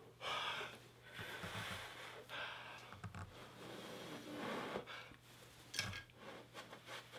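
A person blowing through pursed lips onto a false eyelash, several long breathy puffs of air.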